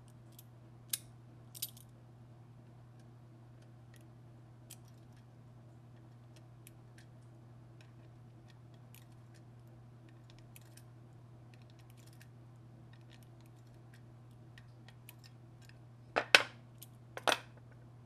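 Small metal ticks and clicks from hand tools and hard-drive parts being handled during disassembly of the drive's actuator arm, with two sharper clicks about a second in and two louder clacks near the end as metal parts and tools are set down on the bench. A steady low hum runs underneath.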